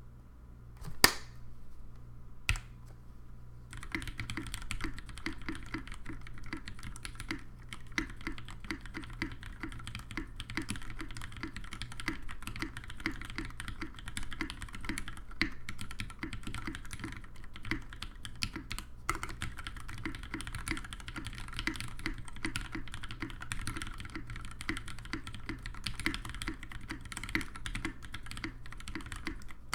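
Singa R1 WKL mechanical keyboard with retooled Cherry MX Black linear switches, lubed with Krytox 205/105 and mounted in a brass plate, being typed on fast and continuously. The typing starts about four seconds in, after two single sharp key strikes.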